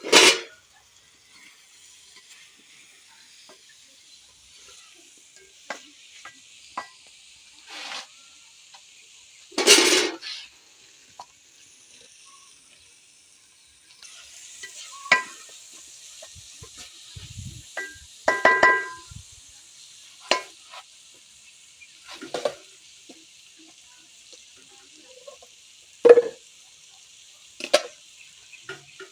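Food sizzling steadily in a hot pan while a cooking spoon stirs and knocks against the pot every few seconds, with one ringing metal clink about two thirds of the way through.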